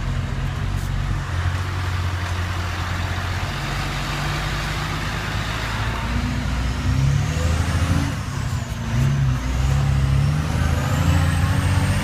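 Heavy truck's diesel engine running under way, heard from inside the cab with road noise. In the second half the engine note climbs and dips, and a faint high whine glides up and then down.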